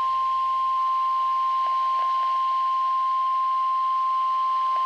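NOAA Weather Radio 1050 Hz warning alarm tone: a single steady, loud pure tone over faint radio hiss. It is the alert signal that comes before a Tornado Watch bulletin.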